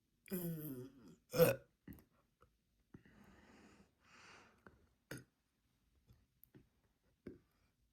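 A woman burping: a drawn-out burp that falls in pitch, then a second short, loud, abrupt burp about a second later. Soft breathy exhales and a couple of small mouth clicks follow.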